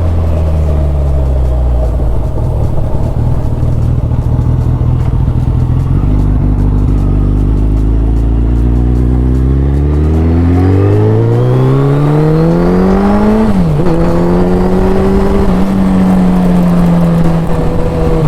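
Suzuki Hayabusa's 1340 cc inline-four engine under hard acceleration while riding: a steady note for several seconds, then a long rising pitch that drops suddenly about 13 seconds in as it shifts up a gear, after which it runs on at a steady, higher note.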